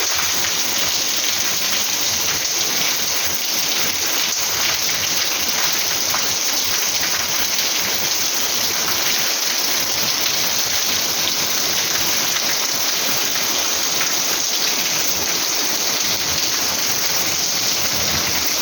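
Heavy rain falling steadily, a dense even patter of drops on hard surfaces.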